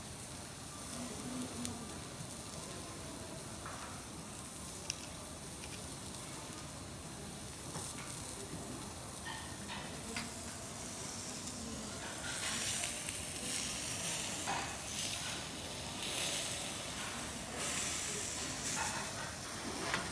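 Steak sizzling on a hot steel teppanyaki griddle: a steady hiss that swells into louder surges in the second half, with an occasional light click.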